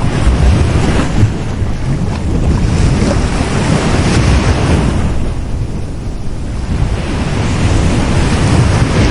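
Sea waves breaking on a beach, a constant heavy wash of surf that swells and eases, dipping a little past the middle and building again near the end.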